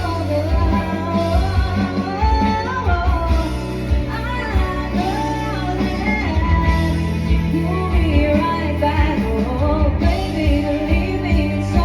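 Live band playing a song, with a singer carrying the melody over a steady beat.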